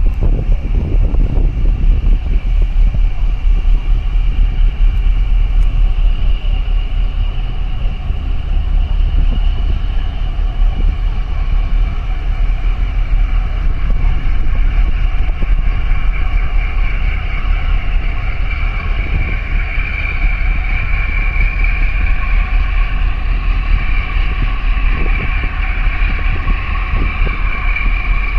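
A boat's engine running with a steady low rumble, along with wind buffeting the microphone. A whine from the machinery grows louder from about halfway through.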